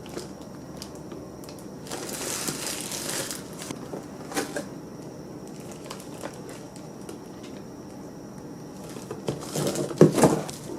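Rustling and crinkling of things being handled, with a sharp click midway and a cluster of louder knocks and rustles near the end.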